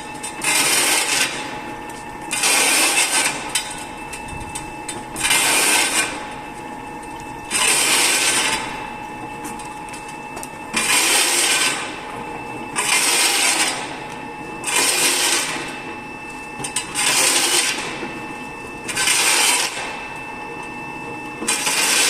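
Tyre-cutting machine running, a steady motor sound broken by a rasping, scraping burst about a second long roughly every two seconds, ten times in all.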